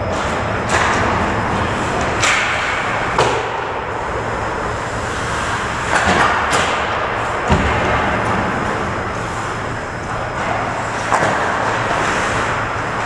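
Ice hockey play: skate blades scraping the ice over a steady arena hiss, with several sharp clacks and knocks of sticks and puck.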